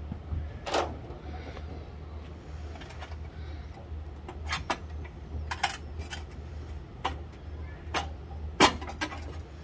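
Scattered sharp clanks and knocks, about ten at irregular intervals, as an engine hanging from a hoist chain is rocked and worked loose from the car. A steady low hum runs beneath them.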